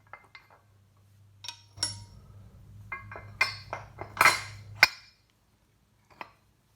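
Steel caster shaft and washers clinking together as they are handled and fitted on a mower's front caster. The sharp metal clinks ring briefly, come in a cluster, and are loudest about four seconds in, with one more click near the end.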